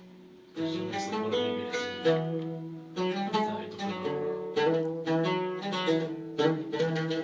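A plucked string instrument playing an instrumental interlude: repeated plucked notes and chords that start after a short pause about half a second in.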